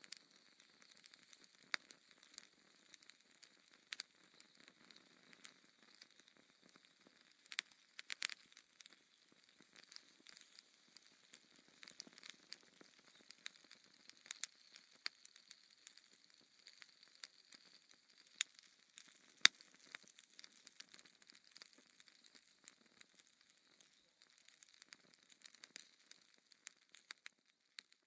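Embers of a burned-down bonfire crackling: irregular sharp pops and ticks over a faint hiss. The pops come in a small cluster about eight seconds in, and the loudest come a little after eighteen and nineteen seconds.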